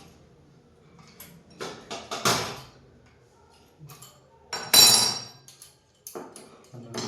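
A series of sharp metallic knocks and clanks from metal parts and tools being handled while a washing-machine stand is fitted, the loudest, with a brief ring, about halfway through.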